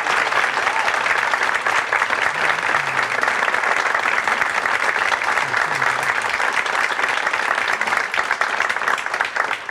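Audience applauding, a dense, even clapping that begins to die away near the end.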